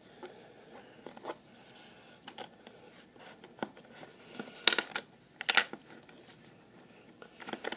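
Plastic Rubik's cube pieces clicking as the cube is handled and pieced back together: a scatter of small clicks, with two louder snaps about five seconds in.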